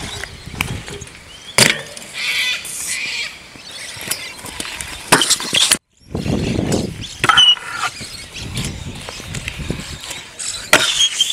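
BMX bike and stunt scooter wheels rolling over concrete skatepark ramps, with about four sharp knocks from landings and deck hits. The sound drops out for an instant a little past the middle.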